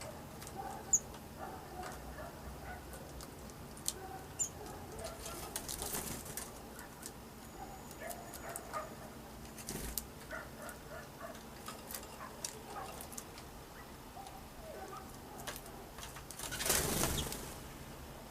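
Birds moving about close by: scattered light wing flutters, small taps and short soft calls. About a second-long rush of wing flapping comes near the end.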